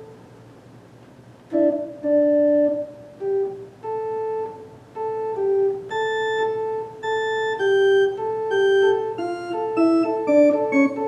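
Baldwin HT2 electronic organ playing a slow passage of held, steady notes in two or three voices, starting about a second and a half in after a brief pause.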